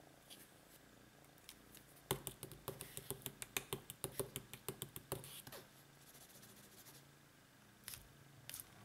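A quick, irregular run of light taps and ticks on a sheet of paper on a tabletop, about five a second for some three seconds, from a marker pen and a cat's paw working at the drawing. Two more single ticks near the end.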